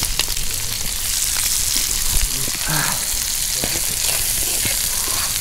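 Liver and onions frying in a skillet over a campfire: a steady sizzle with many small pops.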